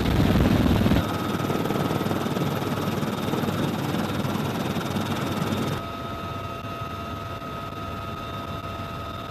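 Military helicopter in flight, heard from inside the open-door cabin: steady turbine and rotor noise with a thin high whine. The noise drops suddenly about a second in and again just before six seconds in.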